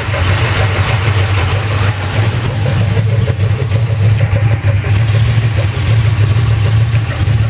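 Small-block Chevy V8 (010 block, bored 60 over) idling in a K20 pickup, with a dragging, clunking noise from underneath. The owner suspects the torque converter or flexplate, or the crank dragging on the oil pan, since the bearings, cam, oil pump and converter have all been checked or replaced.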